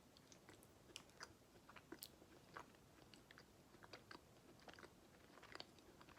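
Faint close-up chewing of a bite of soft cookie: an irregular scatter of small mouth clicks.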